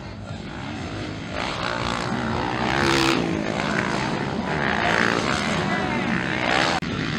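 Several motocross dirt bike engines revving up and down as the bikes ride the track, getting louder about a second and a half in, with a brief sudden dropout near the end.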